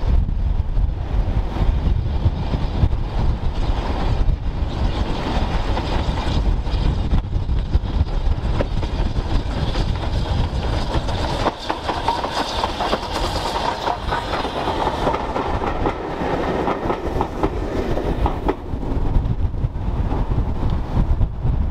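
A BR Standard Class 4 2-6-4 tank steam locomotive with two coaches passes close by. The sound of its running and the clatter of wheels on rail joints build up and are loudest a little past halfway, then fade. Wind rumbles on the microphone throughout.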